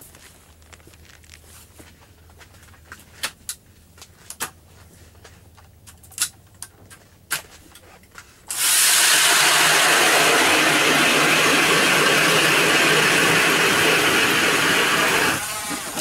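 Power ice auger drilling a hole through lake ice. It starts abruptly about halfway in, runs loud and steady for about seven seconds, then cuts out near the end with a short wind-down. Before it there are a few scattered knocks and clicks of gear being handled.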